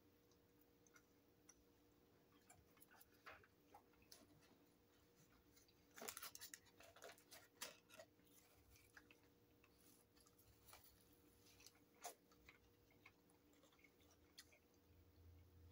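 Faint eating sounds, close to silence: quiet chewing and the crinkle of burger wrapping paper, with a short run of crackles about six to eight seconds in and a single sharp one near twelve seconds.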